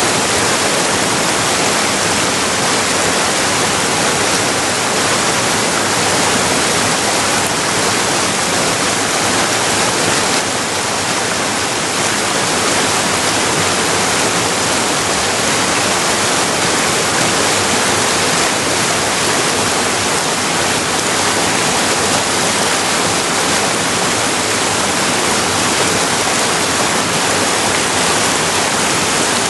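Steady, loud rush of river rapids, white water running over rocks, with no break; the level dips slightly about ten seconds in.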